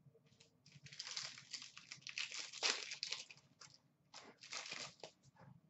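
Foil wrapper of a 2014-15 Upper Deck Masterpieces hockey card pack crinkling as it is handled and torn open, in two bouts: a longer one about a second in and a shorter one near the end.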